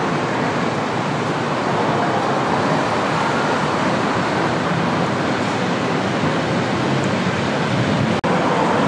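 Steady city traffic noise from vehicles on a busy road, without a break until it cuts out for an instant near the end.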